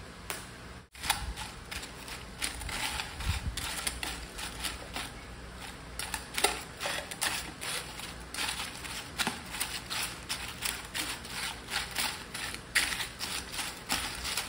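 Chopsticks tossing crisp snack chips with salad in a stainless steel basin: a dense, irregular crackling and rustling, with the stiff chips clicking against each other and the metal several times a second.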